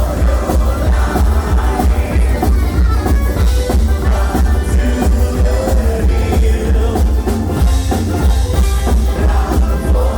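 Live band playing loud music, an instrumental passage with drums keeping a steady beat.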